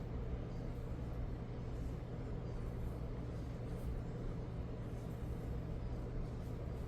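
Steady low room hum with a constant low tone underneath and no distinct events.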